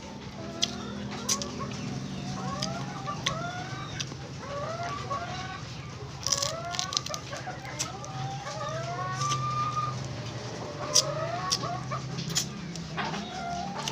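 Chickens clucking, many short rising calls overlapping, with scattered sharp clicks and a steady low hum underneath.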